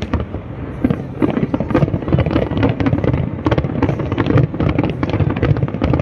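Aerial fireworks display: a dense salvo of shells going off in rapid, overlapping bangs and crackles, several a second.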